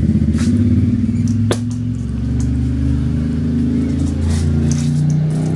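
A low engine hum running steadily, its pitch shifting slightly now and then, with a sharp click about one and a half seconds in.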